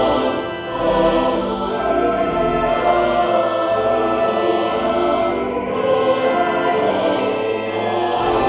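Music with a chorus of voices singing, playing steadily throughout.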